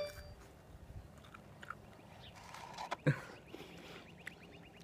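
Faint chewing and mouth noises from someone eating. There is a single sharp tap about three seconds in, and near the end a rapid, even trill of about ten notes a second starts up.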